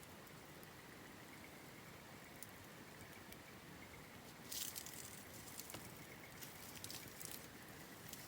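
Wood campfire crackling faintly with scattered sharp pops, becoming a denser, louder run of crackles about halfway through.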